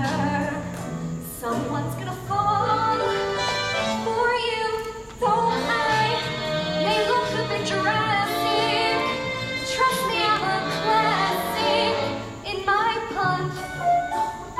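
Female voices singing a stage-musical number over instrumental accompaniment, dipping briefly and coming back in loudly about five seconds in.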